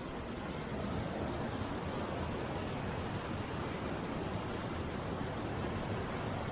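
Steady rushing of a mountain stream and waterfall, an even hiss with no breaks.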